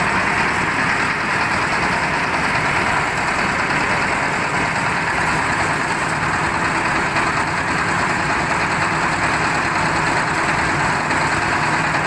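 Sardar single-cylinder diesel engine running steadily on a concrete mixer, driving the turning drum by belt.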